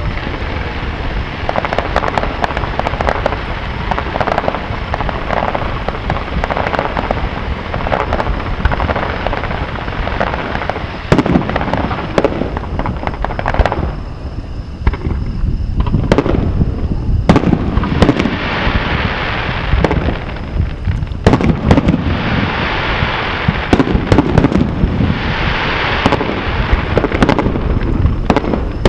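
Fireworks display: aerial shells bursting one after another. There is a short lull about halfway through, after which the bursts come thicker, with stretches of crackling between them.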